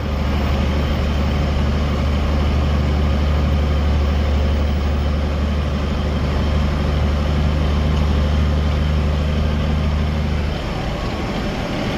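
Big Ford tractor's diesel engine running steadily under way, heard from inside the cab. Its deep, even drone eases off about ten and a half seconds in.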